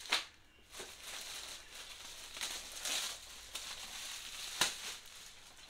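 Plastic packaging crinkling and rustling while parts are unpacked from a box, with a few brief knocks.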